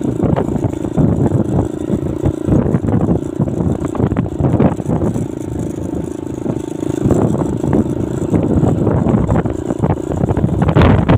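A motor vehicle's engine running steadily as it travels, with rumbling wind and road noise on the microphone, growing louder near the end.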